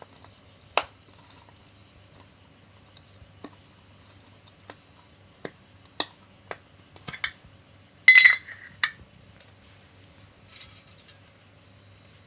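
Scattered clicks and taps of small metal parts and tools being handled on a workbench, with a louder, briefly ringing metallic clatter about eight seconds in and a short scrape near the end.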